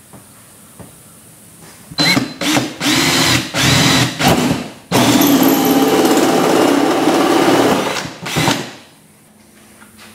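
Cordless drill boring switch holes through a boat's bench panel. It runs in several short bursts starting about two seconds in, then in one steady run of about three seconds, and stops after a last short burst.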